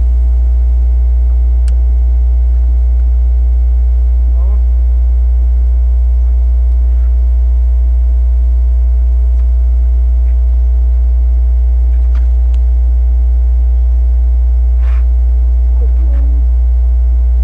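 Loud, steady low electrical hum with several overtones, like mains hum, drowning out everything else; faint voices and a few faint clicks lie under it.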